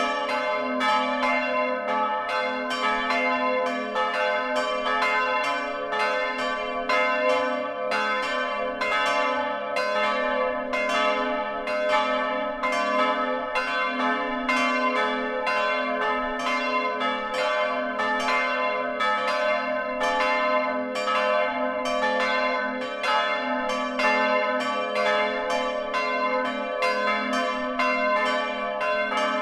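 Church bells swinging and ringing in a wooden bell frame, heard close up inside the tower. The clapper strokes come in a steady, regular stream, and their ringing overlaps so that the sound never dies away.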